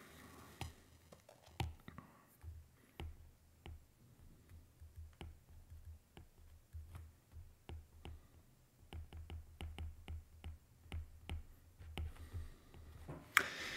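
Stylus tip tapping and clicking on a tablet's screen during handwriting: faint, irregular clicks with soft low knocks, coming more thickly in the second half.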